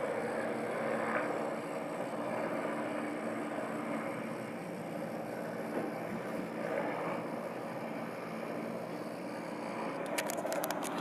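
Distant Mil Mi-8/17-family helicopter flying with a water bucket slung beneath, a steady rotor and turbine drone with a low hum. A quick run of clicks comes near the end.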